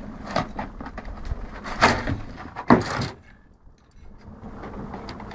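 Cardboard box being ripped apart by a setter's teeth: crackling, tearing cardboard, with two loud rips about two and three seconds in, then quieter rustling.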